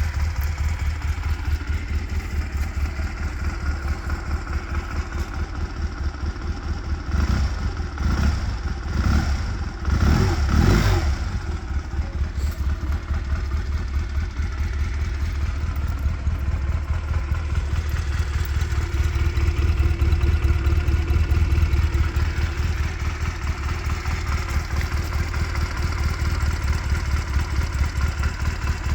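Honda Rebel CA125's small air-cooled four-stroke parallel twin idling through its stock exhaust, with a few quick throttle blips about seven to eleven seconds in before it settles back to a steady idle.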